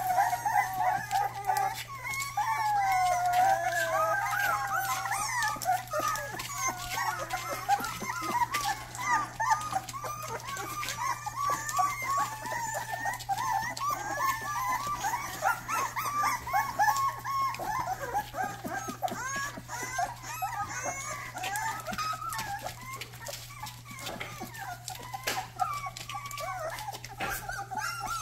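Several young Rottweiler puppies whining and squealing at once, many high, wavering calls overlapping without a break.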